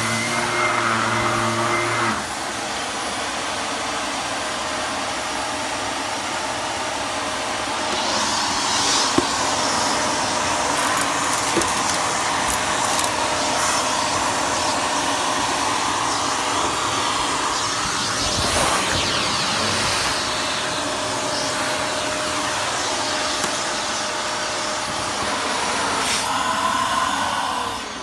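Bagless upright vacuum cleaner running steadily, its low hum changing about two seconds in, with a few ticks of rice and macaroni being sucked up. Right at the end the motor is switched off and winds down with a falling whine.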